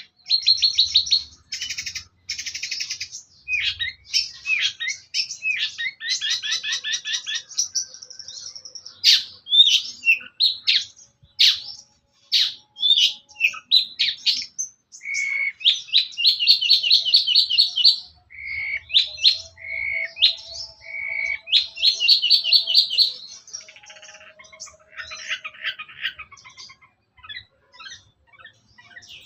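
Long-tailed shrike (cendet) singing a long, varied song of fast trills, harsh buzzy phrases and short whistles, broken by brief pauses.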